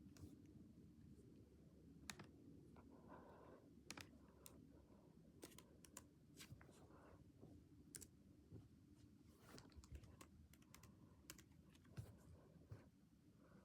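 Faint, steady low hum of a BreezeBay Petey ceiling fan running, with scattered irregular clicks.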